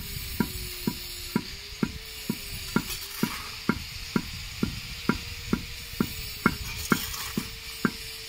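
Small club hammer with a metal head pounding brick fragments on a brick slab to crush them into powder. The blows come in a steady rhythm of about two a second.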